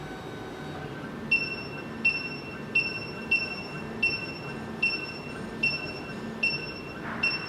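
SEC-E9 key cutting machine decoding an original key: a low steady motor whir with a short high beep repeating about every 0.7 seconds, nine times, as its probe senses the key.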